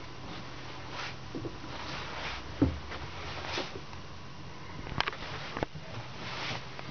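Handling and movement noise from someone carrying a camera through a small wooden yacht cabin: soft rustling, one low thump about two and a half seconds in, and two sharp clicks around five seconds in.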